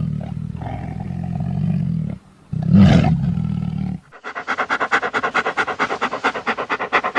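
Custom dinosaur sound effect for Devil Dinosaur, built from big-animal roars: a long low roar, a brief break, then a louder roar about two and a half seconds in. From about four seconds a rapid, rhythmic rattling call follows, about eight pulses a second.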